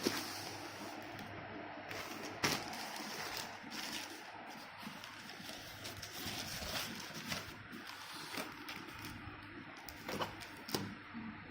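Handling noise from unboxing: soft rustling over a steady background hiss, with a few sharp clicks or taps scattered through.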